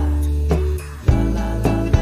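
Background music: plucked guitar notes over a steady bass line, a new note struck about every half second.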